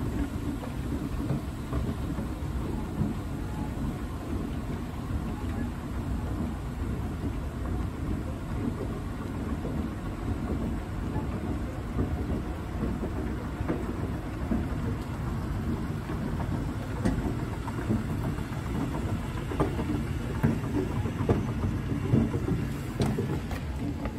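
Mitsubishi escalator running, heard from on board: a steady low rumble of the moving steps and drive, with a few sharper clicks near the end.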